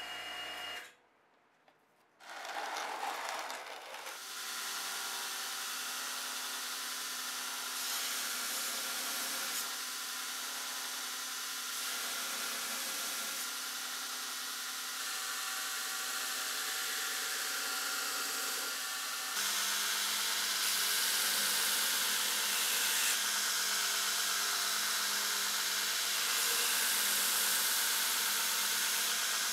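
AmeriBrade belt grinder running steadily while an 80CrV2 steel knife blade is ground against the belt, throwing sparks; the grinding grows louder and brighter about two-thirds of the way through. Before it, about a second of vacuum pump hum, then a brief silence.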